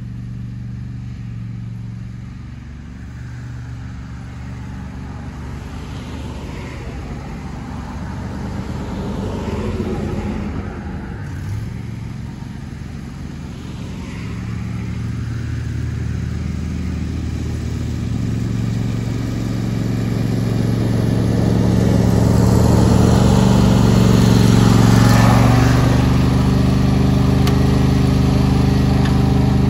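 John Deere S120 riding mower's V-twin engine running steadily while mowing, growing louder as the mower drives up close.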